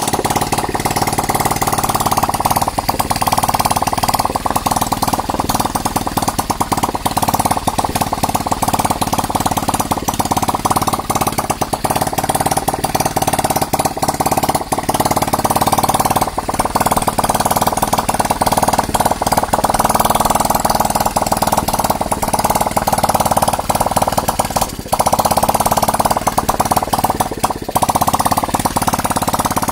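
Yamaha Crypton R motorcycle engine running steadily with a fast, even clatter, its ignition fed through a 4-pin CDI and voltage regulator/rectifier with no battery connected.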